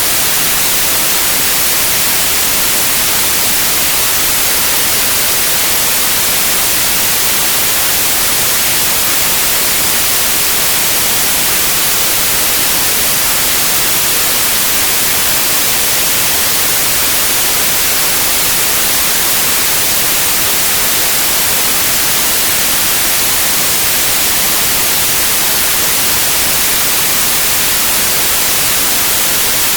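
White noise: a loud, steady, even hiss across the whole range, strongest in the highs, with no change.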